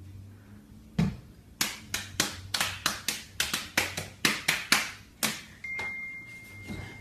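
Open-hand slaps on a customer's back, about fifteen sharp smacks in quick succession over some four seconds, as in a showy barber's massage. Near the end a thin steady high tone comes in.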